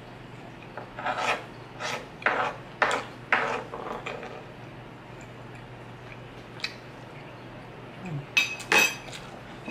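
Metal spoon and fork scraping and scooping rice across a wooden board: a run of short scrapes in the first half, then a couple more near the end with a brief metallic clink.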